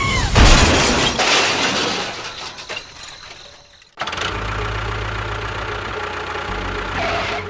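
A loud crash about half a second in, fading away over about three seconds; then, after an abrupt cut, a motor running steadily.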